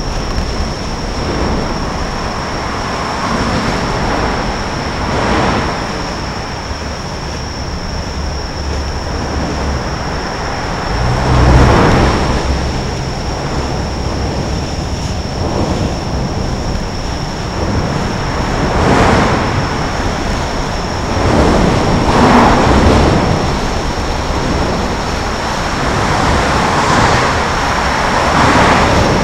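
Steady rush of road traffic passing close by on a bridge roadway, swelling again and again as single vehicles go by, with a heavy low rumble from a large vehicle a little under halfway through.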